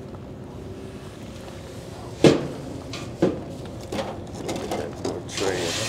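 Two sharp metal knocks about a second apart, followed by lighter clicks and rustling, as the steel grate rack of a commercial smoker is handled while pork butts are loaded onto it.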